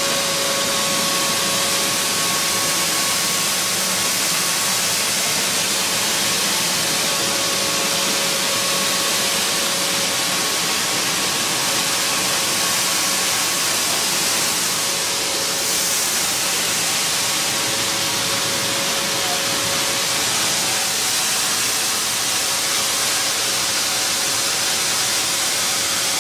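Combined grain cleaning machine running: a steady, loud rush of air from its blower and ducting, with a steady mid-pitched whine over it.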